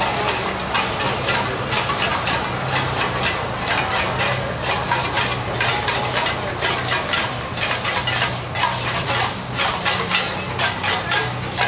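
Street parade going by: a steady low engine hum under rapid, irregular clicking and clattering.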